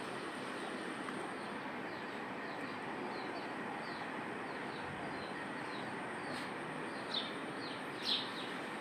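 Small birds chirping repeatedly in short, quick downward notes, two louder chirps near the end, over a steady background noise.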